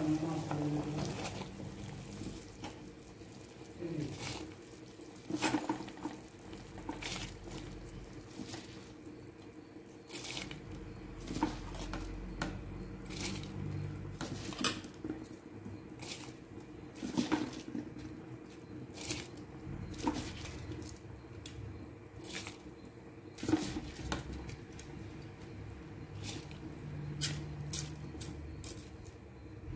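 Spiced water bubbling at the boil in an aluminium pressure cooker pot, with irregular pops and clicks over a steady low hum.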